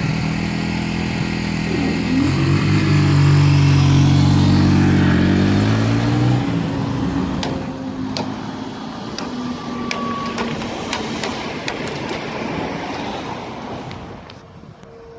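Class 66 diesel-electric freight locomotive, with its two-stroke V12 engine, passing close by. Its engine note is loudest a few seconds in and shifts in pitch as it goes past. Then the wagon wheels click over the rails in a series of sharp knocks, and the sound fades away.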